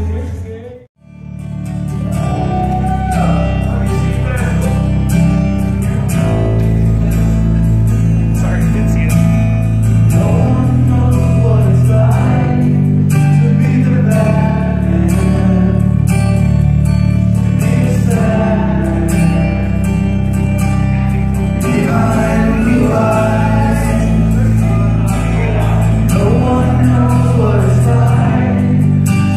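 Karaoke: a man sings into a handheld microphone over a loud backing track with a steady bass line. The sound drops out briefly about a second in, then the song runs on.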